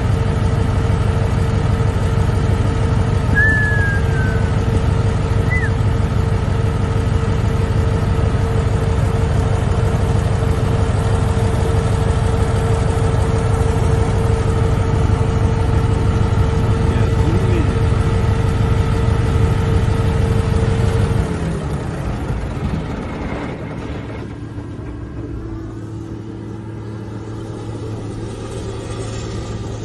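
An engine running steadily with a constant hum. About two-thirds of the way through it becomes quieter, and a lower steady hum takes over.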